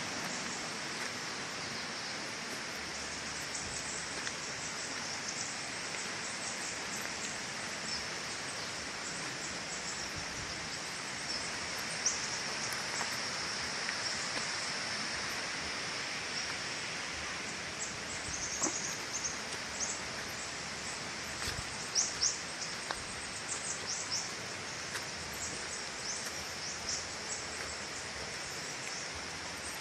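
Outdoor countryside ambience: a steady rushing hiss, with short, high bird chirps that come more often in the second half.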